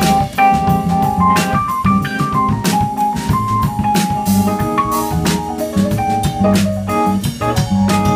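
Live instrumental music: an electronic keyboard playing held notes and a moving melody line over a drum kit keeping a steady beat.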